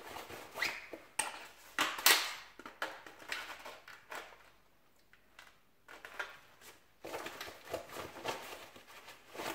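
Airsoft AK being reloaded from a Smersh chest rig: rustling of the vest pouches, then sharp clicks and knocks of the magazines being pulled out and handled, the loudest about two seconds in. After a quieter spell in the middle come more clicks and rustling.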